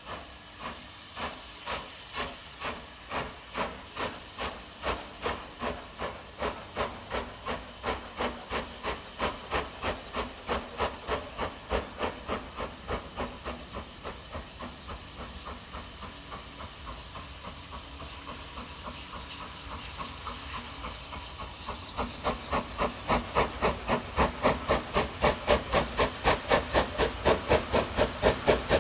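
Steam locomotive pulling a train, its exhaust beating out an even rhythm of chuffs, about three a second. The beats grow louder over the last several seconds as the engine draws nearer.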